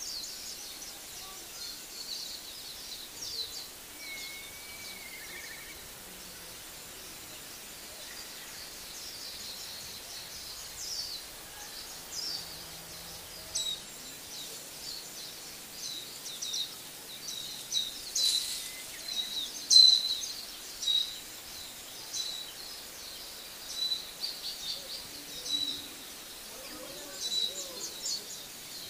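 Small birds chirping repeatedly in short high notes over a faint steady outdoor background, the loudest chirps a little past the middle.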